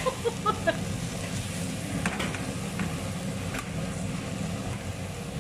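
Onions, garlic and chilies sautéing in a steel wok on a gas stove: a steady low rumble under light sizzling, with a few clicks of a metal spatula stirring against the pan.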